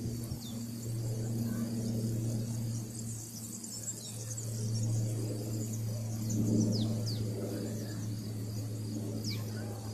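Outdoor background sound: a steady low hum, with insects chirping and a few short, high, falling bird chirps.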